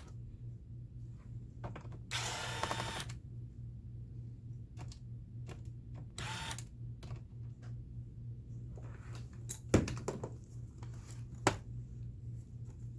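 Short scraping noises, light ticks and two sharp clicks from hands handling a laptop and its parts, over a steady low hum.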